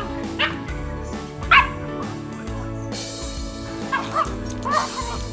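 Dogs at play yipping and barking, a dachshund and a white Labrador puppy: about five short, sharp high yips, the loudest about one and a half seconds in and a quick run of smaller ones near the end. Background music plays steadily underneath.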